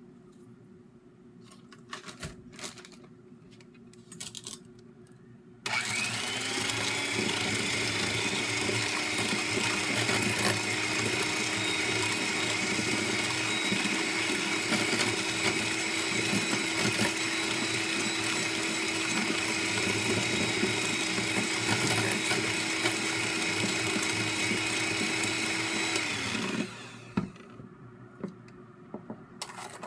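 Electric hand mixer running steadily, its beaters whisking egg yolks and sugar in a stainless steel bowl. It starts about six seconds in, its pitch rising slightly as it comes up to speed, and winds down near the end.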